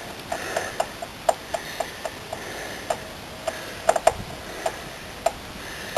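Screwdriver undoing a screw from a motorhome door hinge: a series of light, uneven clicks, one or two a second, as the tool is turned and reset.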